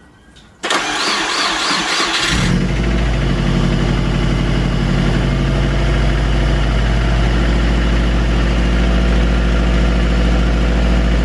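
Turbocharged Subaru Impreza flat-four engine cold-started: the starter cranks for under two seconds, the engine catches about two seconds in, then settles into a steady idle.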